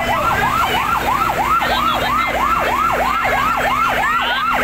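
Fire truck siren in a rapid yelp, about four rising-and-falling pitch sweeps a second, over a steady low hum.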